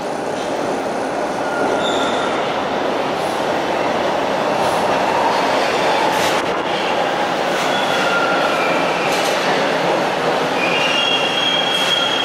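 TTC T1 subway train pulling into the station alongside the platform: a steady rumble of steel wheels on the rails that grows louder over the first two seconds. Brief high wheel squeals come now and then, more of them near the end.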